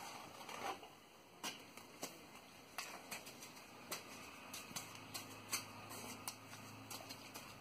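Steel trowel scraping and tapping on wet cement while a stepping stone is shaped: irregular light clicks and scrapes. A faint low hum comes in about halfway through.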